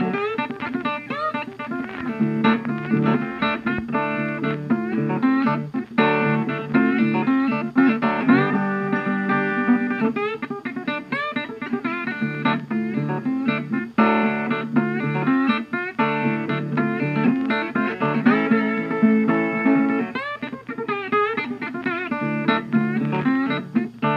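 Background music led by plucked guitar, a steady run of quick picked notes with some bent notes.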